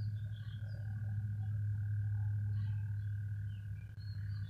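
A steady low hum with a thin steady higher tone above it and scattered faint short chirps, as in night-time ambience picked up by a phone microphone.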